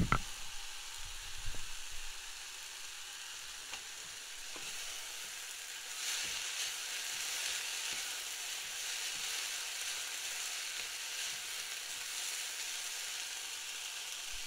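Finely chopped onions frying in a saucepan over slightly lowered heat: a steady high sizzle, the 'jii' sound the cook listens to when setting the heat while the onions' moisture cooks off. About six seconds in the sizzle grows louder as a spatula turns the onions, with light taps against the pan.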